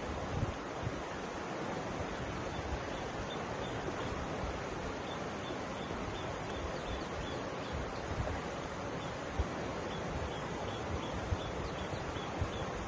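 Mountain river flowing steadily, an even rush of water. Wind buffets the microphone from time to time. A faint run of high, evenly spaced chirps sounds through most of it.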